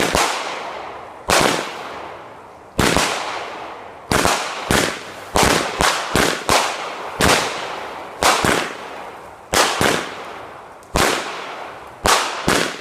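World Class Fireworks Crazy Exciting cake firing: a string of sharp booms, one every second or so and sometimes in quick pairs and triples, each fading out over about a second.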